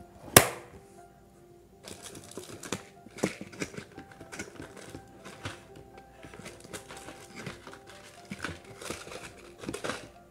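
A sharp clack from the aluminium vanity case about half a second in, then plastic press-on nail trays and their cellophane wrapping crinkling and rustling as they are lifted and shuffled. Soft background music plays underneath.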